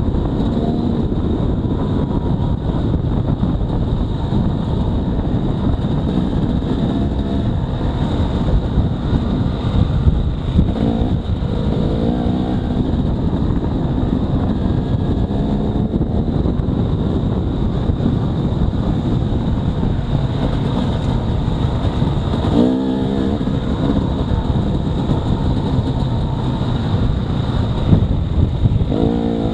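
Dirt bike engines running hard on a trail over a thick low rumble. The revs climb and fall again several times, most clearly about 11 and 22 seconds in and just before the end.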